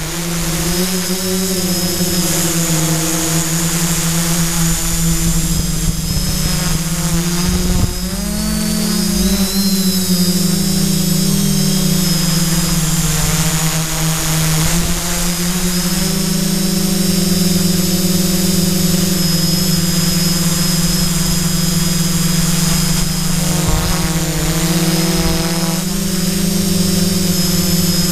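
Quadcopter's electric motors and propellers as picked up by the GoPro riding on it: a loud, steady hum with a whine over it, its pitch wavering as the throttle changes, most noticeably about eight seconds in and again near the end.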